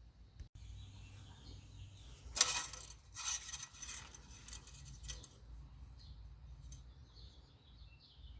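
A cluster of short rustling, clinking handling sounds, loudest about two and a half seconds in, as the engine oil dipstick is drawn out for a level check. Birds chirp faintly near the end.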